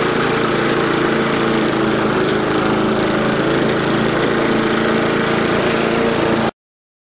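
Briggs & Stratton single-cylinder walk-behind lawn mower engine running steadily while the mower is pushed onto the grass to cut. The sound cuts off abruptly near the end.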